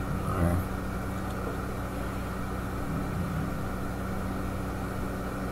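Steady motor hum of an electric room fan, even and unchanging, with a short soft sound about half a second in.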